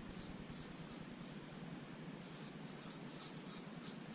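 Shaving brush swirling soap lather, a series of soft, wet swishing strokes a few per second, with a pause of about a second midway.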